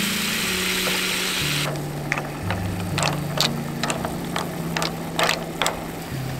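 Clams and garlic sizzling in a frying pan; the sizzle cuts off abruptly about a second and a half in. Then comes a run of sharp, irregular clicks and clinks over soft background music.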